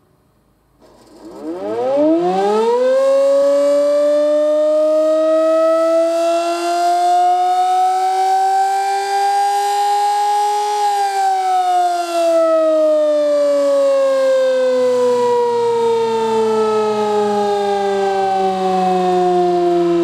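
Sterling M-10 electromechanical warning siren on a test run: it winds up from silence with a steeply rising wail, creeps slowly higher for several seconds, then from about halfway through its pitch falls slowly as it winds down.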